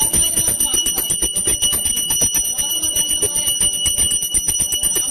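A small hand bell rung rapidly and without pause, its clapper striking many times a second over a steady high ringing.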